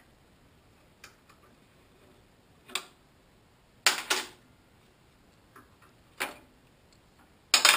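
A handful of separate metallic clicks and clanks as bar clamps and a metal level are worked against the metal top of a table saw, with quiet between them and the loudest clatter near the end.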